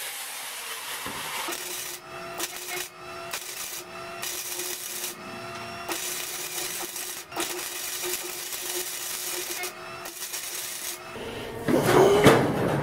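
Abrasive cutting of steel dies away in the first second or so. Then a wire-feed (MIG) welder crackles in short stop-start bursts, tacking steel on the car body. Near the end there is a louder knock and clatter.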